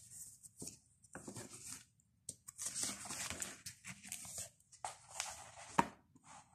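Hardcover picture book being opened and its pages turned: irregular paper rustling and handling noises, with a sharp tap near the end.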